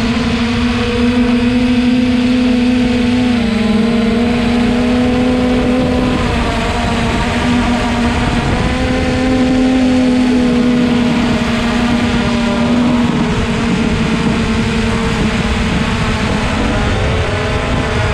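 Electric motors and propellers of a small remote-control aircraft, heard from on board: a steady buzzing hum that shifts pitch a few times with the throttle, over a constant wind rumble.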